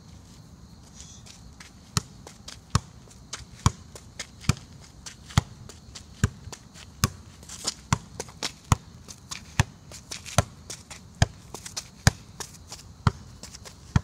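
Football juggled with the outside of the left foot: a sharp thud at each touch, about one every 0.8 seconds, starting about two seconds in.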